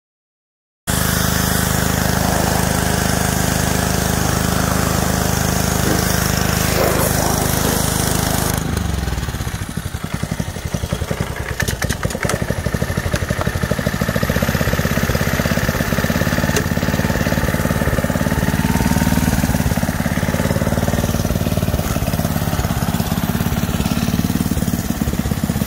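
Small gas engine of a pressure washer running steadily. About eight seconds in, its steady hum changes to a rapid low pulsing beat.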